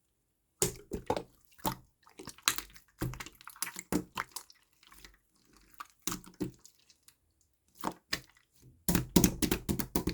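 Clear slime being squished and poked by hand, giving irregular wet clicks and pops, with a quick run of them about nine seconds in.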